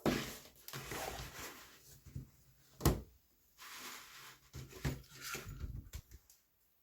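Packaging being opened and handled: stretches of rustling, a single sharp knock about three seconds in, and a few lighter clicks and taps shortly before the sound stops.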